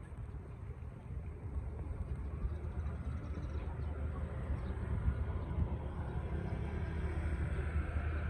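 Boat engine running steadily with a low drone, mixed with the noise of wind and water moving past the boat.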